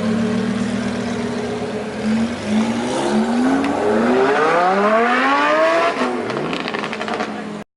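Lamborghini Huracán's V10 with an Akrapovič exhaust accelerating hard: the engine note climbs in pitch through a few short steps and then one long rise, and drops about six seconds in. A rapid run of exhaust crackles follows, and the sound cuts off suddenly near the end.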